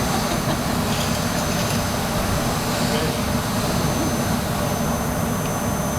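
A steady low rumble of background noise with a thin, steady high whine over it, and a few faint ticks.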